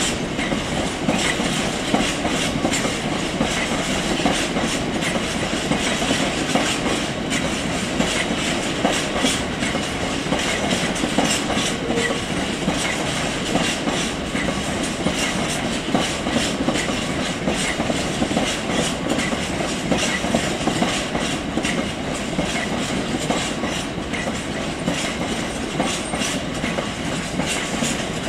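A long rake of Cemex bogie hopper wagons on a stone train rolling past, the wheels giving a steady clatter over the rails at the junction.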